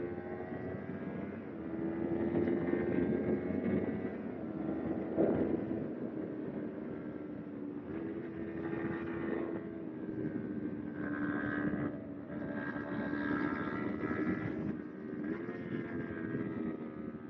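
Kawasaki Ninja 250R's parallel-twin engine running steadily under way, its pitch holding fairly even with small rises and dips.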